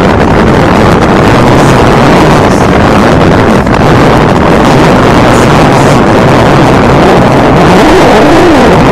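Wind buffeting the camera's microphone over the rumble and rattle of mountain bike tyres rolling fast over a dry, stony dirt trail.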